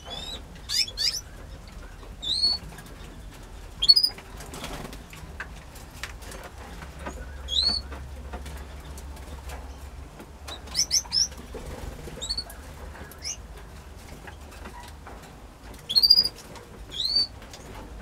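Canary giving short, high chirping calls, singly and in quick pairs or clusters, every second or few.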